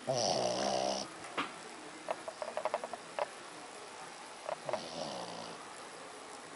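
Sleeping dog snoring: a loud snore in the first second, then a fainter one about five seconds in, with a few small clicks between.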